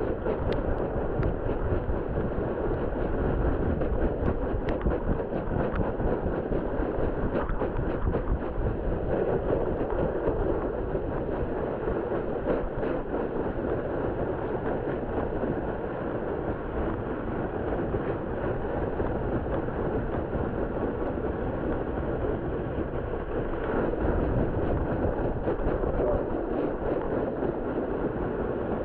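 Plastic sled sliding over snow as a dog tows it: a steady, rough rushing and scraping noise from the hull on the snow, with a few faint ticks.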